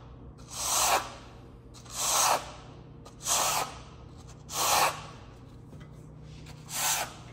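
Stainless steel trowel scraping Marmorino lime plaster across a primed sample board in five short, evenly spaced swishes, about one every second and a quarter, as the thin coat is spread and compacted.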